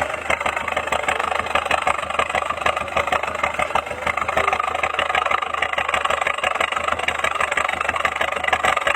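Petrol engine of a modified pickup running steadily through an aftermarket muffler, giving a fast, even, snoring exhaust note.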